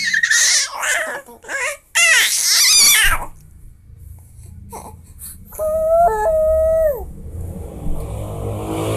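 A baby crying in loud, high, wavering wails for about three seconds, then falling quiet.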